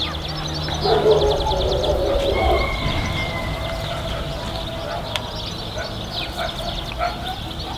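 Birds calling in the open air, with a fast high trill about a second in and scattered chirps and calls after it.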